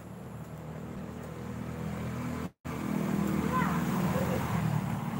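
A motor engine running steadily, getting louder over the first few seconds, with the audio cutting out for an instant about halfway.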